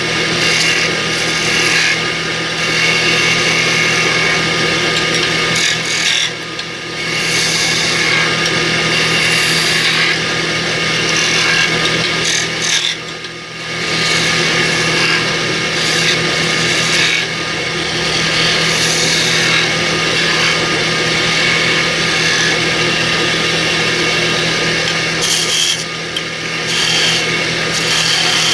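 Wood lathe spinning a wooden blank while a hand-held turning chisel cuts into it: a continuous rough scraping hiss over a steady hum. The cutting sound drops briefly three times, about six seconds in, around thirteen seconds in and near the end.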